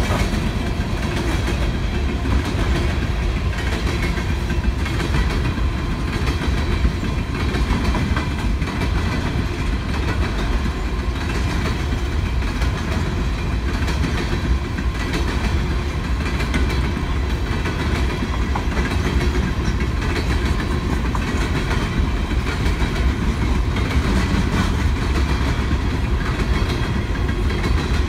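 Coal hopper cars of a freight train rolling past: a steady rumble of steel wheels on the rails, with a clickety-clack as the wheels cross the rail joints.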